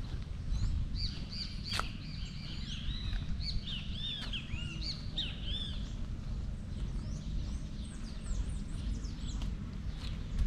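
Small birds chirping in quick, arching calls, busiest in the first half and thinner later, over a steady low rumble. A sharp click about two seconds in.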